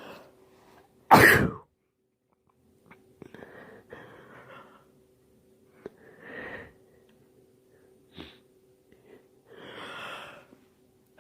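A man sneezes once, loud and sudden, about a second in: an allergy sneeze from pollen. Several quieter breathy sniffs and breaths follow.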